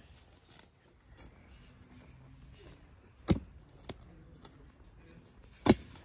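A few sharp knocks over a quiet background: two loud ones a little over two seconds apart, with a fainter one shortly after the first.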